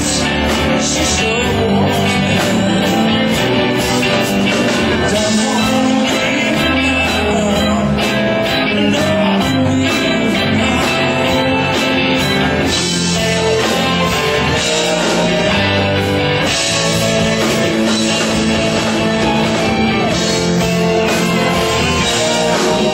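Rock band playing live, with guitar and singing.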